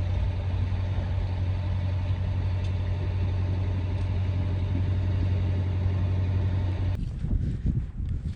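Sailboat's engine running steadily under way, a constant low drone with rushing wind and water noise. About seven seconds in it cuts off abruptly, giving way to an uneven low rumbling.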